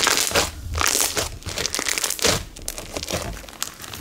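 Silica-bead slime on a white glue base being squeezed and kneaded by hand: a dense, irregular crackling crunch of the beads, loudest about a second in and again a little after two seconds. The beads sit too loosely in the base for a full, packed crunch.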